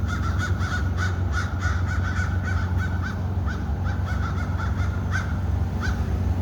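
A flock of crows cawing over and over, several short harsh calls a second, mobbing a hawk perched in a tree. Beneath them runs a steady low rumble.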